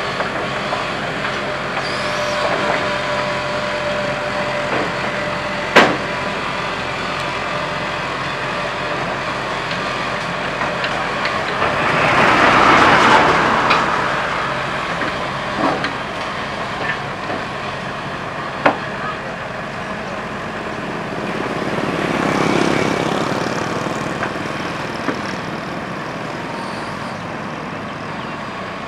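Kobelco SK120 crawler excavator's diesel engine running steadily as the machine crawls up wooden ramps onto a truck's lowboy trailer, with two sharp knocks, about six seconds in and again near nineteen seconds. Twice, around twelve and twenty-two seconds in, a broad swell of noise rises and fades over a few seconds.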